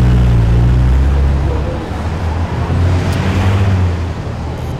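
Steady, low engine rumble of vehicles in street traffic, with a brief rise in road noise about three seconds in.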